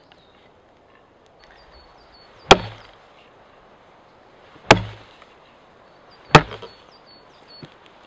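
Homemade collared axe chopping into a log: three sharp blows about two seconds apart, the blade biting into the wood.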